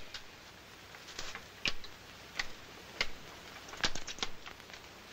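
Scattered light clicks, taps and drips of wet photographic prints being handled: lifted from a darkroom tray and pinned to a drying line. The clicks come about eight or nine times at uneven intervals, a few in quick succession near the middle.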